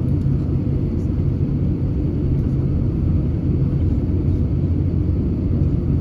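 Airbus A350-900 taxiing, heard from inside the passenger cabin: a steady low rumble of its Rolls-Royce Trent XWB engines at taxi power and the rolling airframe.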